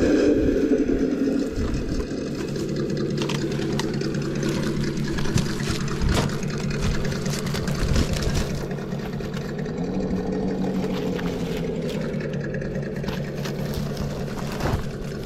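Simulated engine sound from an RC crawler's Sense Dual ESS sound kit, running as a steady low engine note through the truck's small speaker. The pitch rises about ten seconds in and eases back down, and scattered clicks and knocks sound throughout.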